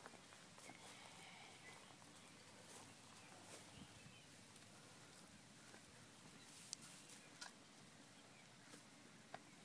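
Near silence: faint outdoor ambience with a few soft clicks from alpacas chewing oat hay close by.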